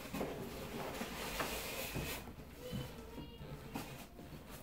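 Rustling and crinkling of packing material and cloth snake bags being handled and pulled out of a cardboard shipping box, busiest in the first two seconds and quieter after.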